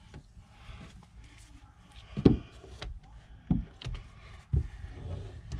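Squeegee-type extractor stroked over wet window tint film on glass, pushing the water out from under the film, with a few short knocks, the loudest a little over two seconds in.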